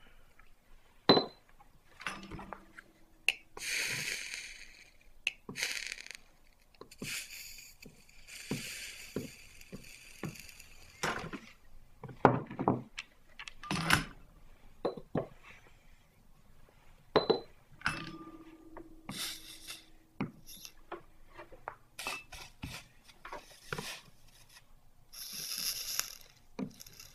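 Small clinks and taps of metal tools and a stained glass box being handled on a workbench, scattered irregularly, with a few short hisses in between.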